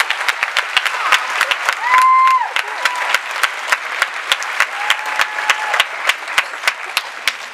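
Audience applauding, with sharp claps close to the microphone over the crowd's clapping. Two high, held cheering calls rise above it: a loud one about two seconds in and a fainter one around five seconds.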